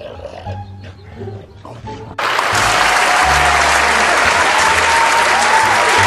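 Background music, then about two seconds in a crowd's loud applause starts abruptly and carries on over the music.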